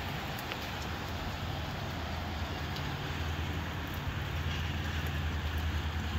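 Gusty wind with steady rain, the wind buffeting the microphone as a low rumble over a hiss of rain with faint drop ticks, building slightly toward the end.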